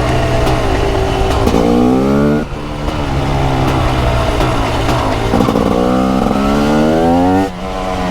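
TM SMR 300's 300cc two-stroke single-cylinder engine under acceleration: a steady note, then the pitch rises twice, each climb cut off abruptly with a brief dip in loudness, about two and a half seconds in and again near the end.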